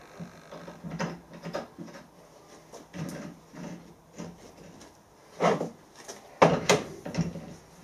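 Hand tap being set into a threaded bush held in a bench vise and wound in by hand, to finish a thread that was not fully cut. Irregular metal clinks and scrapes, with a few louder clunks past the middle.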